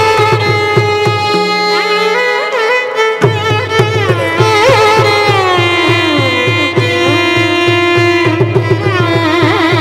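Carnatic violin duet with mridangam: two violins play a gliding, ornamented melody over a steady held tone, while the mridangam keeps a quick run of strokes that stops for a couple of seconds near the start, then comes back in.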